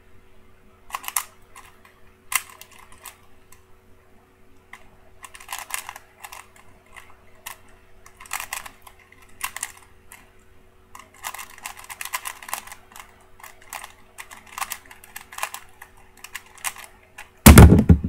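3x3 Rubik's cube being turned fast in the hands: irregular runs of plastic clicks and clacks as the layers snap round. Near the end comes a loud thump as the solved cube is put down and the hands slap onto the speed timer's pads to stop it.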